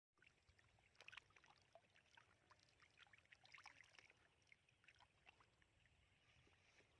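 Faint, irregular splashing and sloshing of shallow muddy water, a scatter of small wet crackles and plops, a little louder about a second in and again near the middle.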